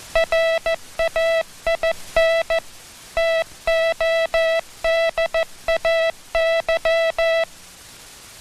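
Morse code sent as a keyed steady beep, a pattern of short dits and long dahs separated by short and longer gaps, stopping about seven and a half seconds in.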